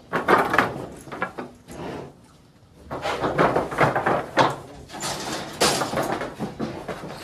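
Knocks and clattering from a cattle working chute as cattle are pushed through it: a few sharp bangs about half a second in, then a run of rattling knocks from about three seconds on.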